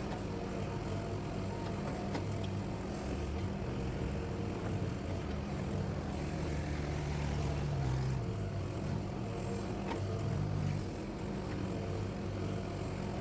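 Excavator's diesel engine running steadily as it works, its note swelling for a couple of seconds a little past halfway and again near ten seconds.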